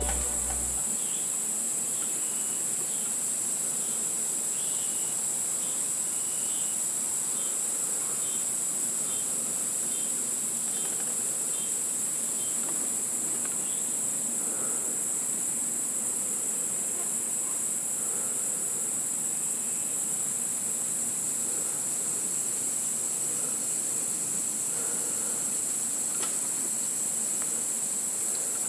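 Steady, high-pitched insect chorus of crickets and other insects, with faint short chirps repeating through the first half.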